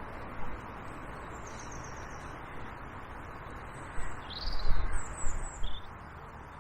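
Small birds chirping in short, high notes over a steady background rush. About four seconds in, a few low thumps come in quick succession, the loudest sounds here, overlapping more chirps.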